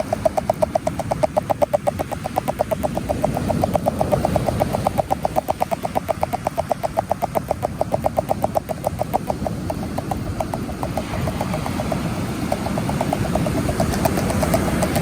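Fishing reel being wound in with a fast, steady clicking of about ten clicks a second. The clicking pauses briefly about ten seconds in, then resumes. Steady surf and wind noise runs underneath.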